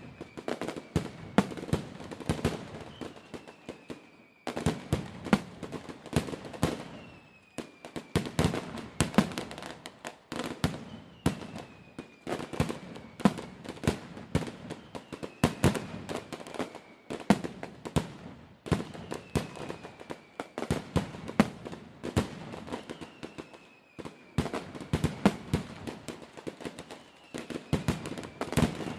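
Gemstone consumer firework barrages going off in rapid volleys of sharp cracks and bangs, with short lulls between volleys. A faint falling whistle comes back about every four seconds.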